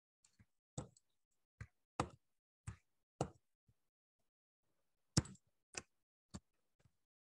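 Computer mouse clicking about ten times at irregular intervals, as anchor points are placed with the pen tool in a drawing program.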